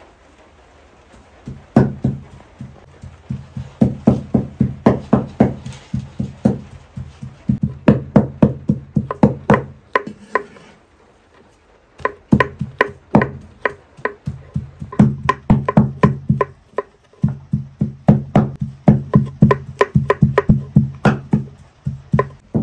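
Kitchen knife chopping button mushrooms on a wooden cutting board: runs of quick knocks, about four a second, each with a dull thud of the blade on the board. There are short pauses between runs.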